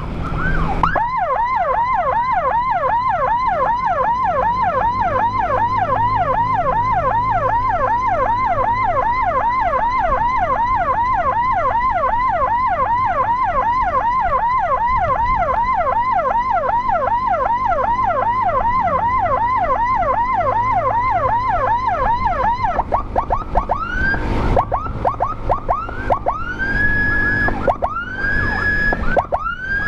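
Electronic siren in a fast yelp, sweeping up and down about three times a second. About 23 seconds in it changes to short, irregular rising whoops that hold briefly at the top pitch. A low engine rumble runs underneath.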